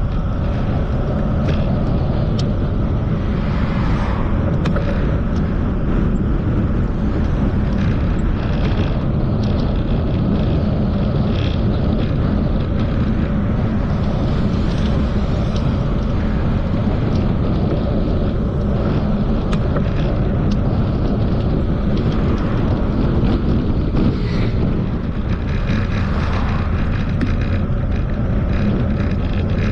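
Continuous low rumble of a bicycle ride: wind on the camera's microphone and tyres on the road, with a few faint ticks and rattles.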